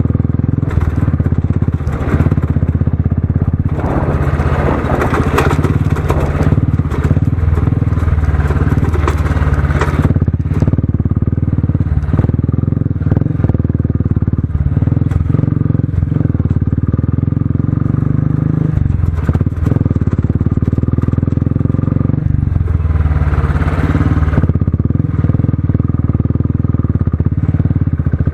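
Motorcycle engine running steadily while the bike is ridden over a rough dirt track, with rattling and wind rush on the microphone coming and going over it.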